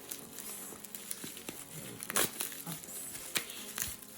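Product packaging being handled and opened: crinkling and rustling with scattered sharp clicks, the loudest about halfway through and near the end.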